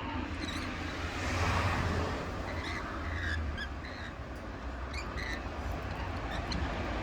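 Wild birds giving short, high chirps scattered through, over a steady low rumble.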